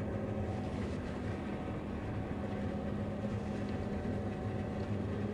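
John Deere 9500 combine's diesel engine running steadily, a constant low drone with a hum that holds one pitch.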